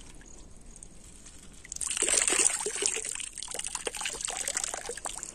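Water pouring and trickling out of a dripping mesh bag held up over a river, splattering onto the water surface below. It starts almost two seconds in, loudest at first, then goes on as a lighter trickle.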